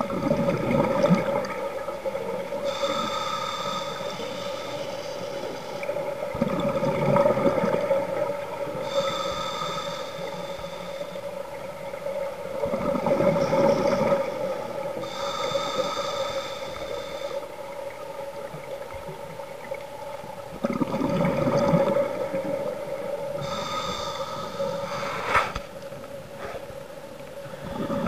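Scuba diver breathing through a regulator underwater: a slow cycle of about four breaths, each a hissing inhale through the demand valve followed by a rumbling burst of exhaled bubbles, over a steady hum. A single sharp click near the end.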